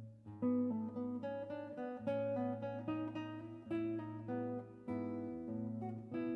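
Background music: a solo acoustic guitar playing a slow piece, single plucked notes over a held bass line.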